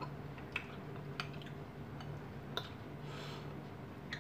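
Metal spoon clinking against a ceramic bowl as kinilaw is stirred and scooped, four sharp clinks spread out, with a short soft scrape about three seconds in. A steady low hum runs underneath.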